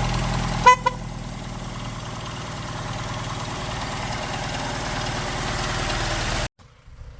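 BMW E90 320i four-cylinder petrol engine idling steadily just after being started with new rocker cover gaskets fitted. About 0.7 s in there is a short tonal beep, after which the idle is a little quieter, and the sound cuts off abruptly near the end.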